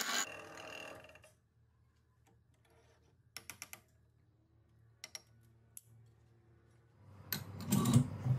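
Bench drill press motor and chuck running down after drilling, fading out over about a second. Then a few light, sharp metallic clicks, a quick run of about four and a couple of single ones, as the drilled steel bar is handled in the vise. A louder metal clatter near the end.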